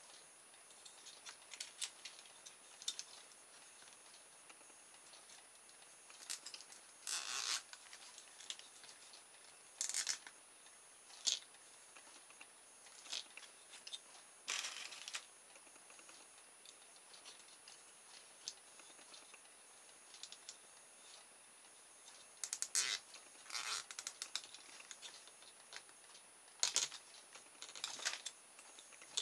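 Nylon cable ties pulled tight through their locking heads: short ratcheting zips at irregular intervals, with light handling noise between them.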